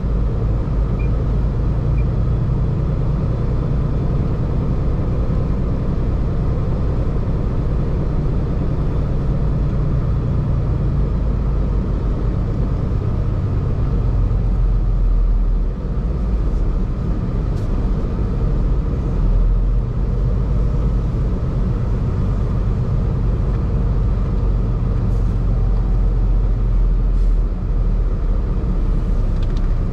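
Semi-truck diesel engine running as the truck rolls slowly, heard inside the cab: a steady low rumble.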